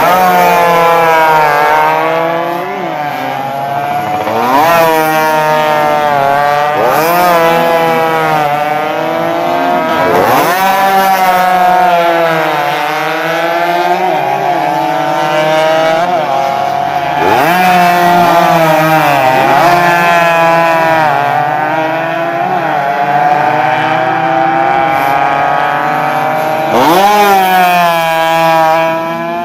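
Several 115 cc two-stroke racing motorcycles at full throttle, their engines revving high and overlapping. Each pitch climbs and then drops back sharply, again and again, as the bikes shift and pass.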